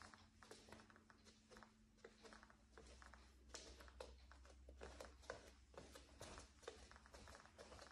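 Wooden floor creaking and clicking faintly under slow barefoot steps: many small irregular ticks and crackles, several a second.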